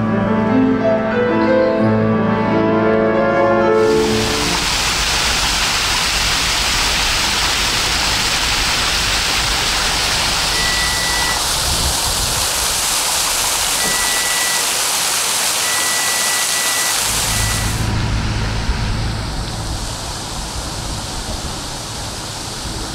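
Background music for the first four seconds, then an abrupt cut to the steady splashing of fountain jets spouting from a plaza pavement. About five seconds before the end the splashing gives way to a quieter, steady low rumble.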